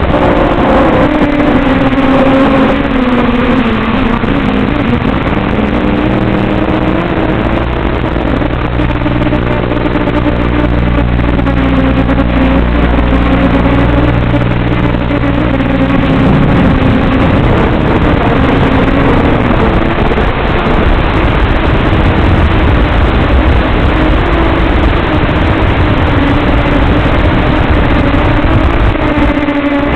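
Radio-controlled model airplane's motor and propeller running continuously, the pitch of its drone rising and falling as the throttle changes, over a steady rushing noise.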